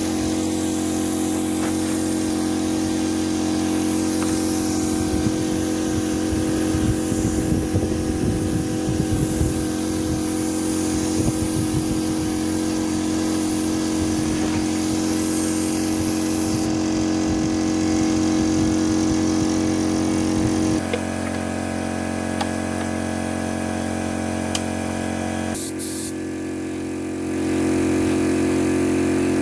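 A steady machine hum with a few clattering noises, which changes abruptly twice in the second half.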